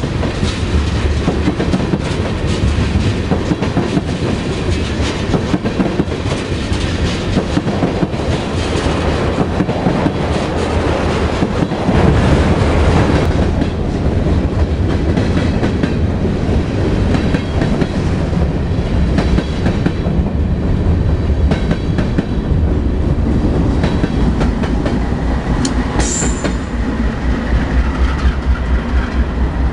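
Freight train of tank cars passing close by: a steady rumble with the clickety-clack of steel wheels over the rail joints, and a brief high squeal near the end. At the very end a BNSF diesel locomotive running mid-train comes past, adding a deeper engine throb.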